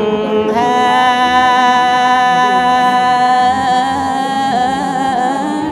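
Women singing a traditional wedding exchange song unaccompanied, in long drawn-out notes. About half a second in the voice steps up to a higher note and holds it, wavering slightly, then slides up just before the singing stops.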